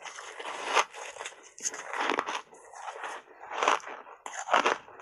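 Block ice coated in matcha powder being bitten and chewed: a run of irregular, loud crunches and scrapes of ice breaking between the teeth.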